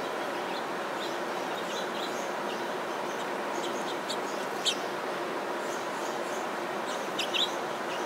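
House finches chirping: short, high chirps scattered throughout, the loudest about halfway through and a quick cluster near the end, over a steady background hiss.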